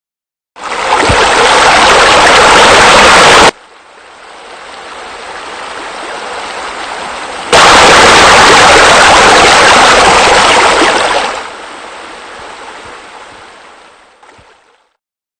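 Rushing, splashing water of a pool waterfall in two loud stretches that start and cut off abruptly. Quieter running water fills the gap between them and fades out near the end.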